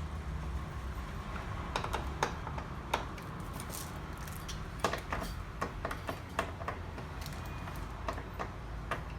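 Irregular light clicks and taps of a hand screwdriver and small metal parts as screws on aluminum storefront lock cylinders are tightened.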